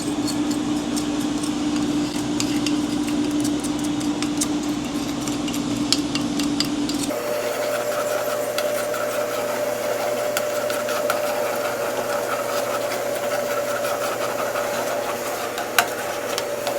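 Stirring and scraping in a pot of sauce over a steady mechanical hum; the hum jumps abruptly to a higher pitch about seven seconds in.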